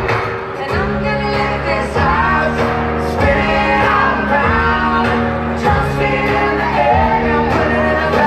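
Live country band playing through a large concert PA: a woman sings over sustained bass notes and a slow, heavy drum hit about every second and a quarter.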